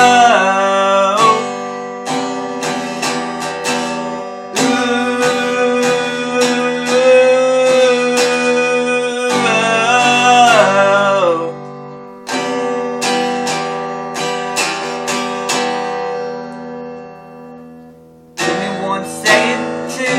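Acoustic guitar strummed in a steady rhythm, with a voice holding long wordless notes that slide at their ends. The playing dies away briefly near the end, then the strumming starts again.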